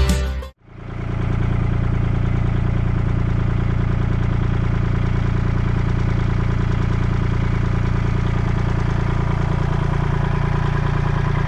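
An engine idling steadily at an even, unchanging pitch, cutting in abruptly about half a second in.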